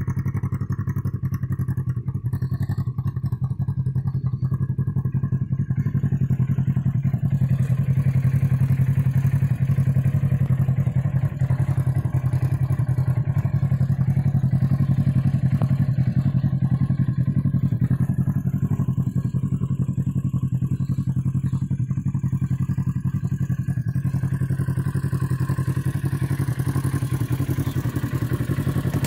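Polaris RZR XP 1000's parallel-twin engine idling steadily, a low even hum that grows a little louder about seven seconds in.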